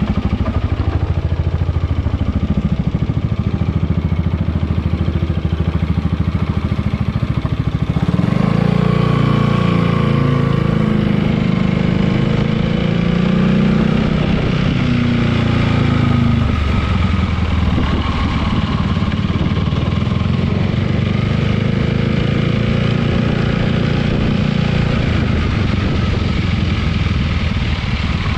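Yamaha XMAX 300 scooter's single-cylinder engine running, with the revs rising and falling about a third of the way in and again later. No rattle is heard from the newly fitted mudguard, which no longer knocks against the engine.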